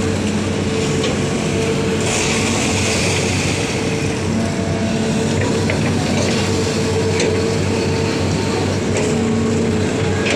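Excavator's diesel engine running steadily at working revs, with a brief hiss about two seconds in and a few light knocks later on.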